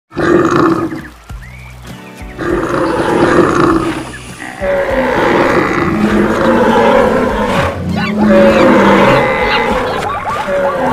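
Animal stampede sound effects: roars and other animal calls over a dense, continuous din, with music underneath. There is a brief lull about a second in.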